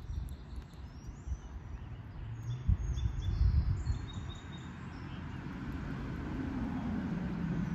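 Outdoor ambience: a few short bird chirps in the first half over low rumbling thumps on the microphone, then the steady rush of road traffic swelling louder toward the end.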